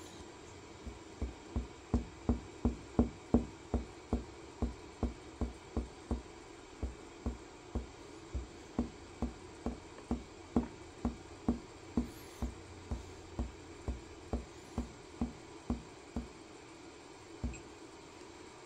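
Fingertip tapping repeatedly on a coffee machine's touchscreen: dull knocks about two to three a second with a few uneven pauses, strongest in the first few seconds, then one last tap near the end.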